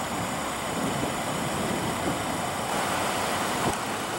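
Car engine idling steadily, with a short knock about three and a half seconds in.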